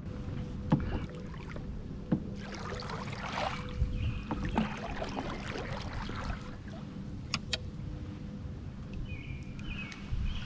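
Canoe on the move: water swishing and splashing with the paddle strokes, and a couple of sharp knocks against the hull in the first two seconds.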